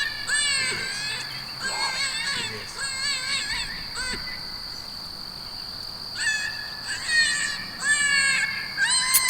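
High-pitched animal crying calls repeated in short falling bursts, with a pause of about two seconds near the middle. A steady high whine sounds underneath.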